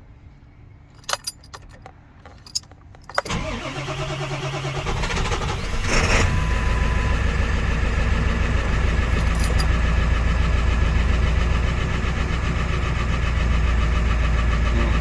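Ford F450 diesel engine cold start: a few clicks, then the starter cranks for about three seconds before the engine catches about six seconds in and settles into a steady idle. The owner hears it running smooth and takes the quick start as a sign that a loose fuel filter cap letting air into the fuel was behind the hard starting, though it still has a lazy injector.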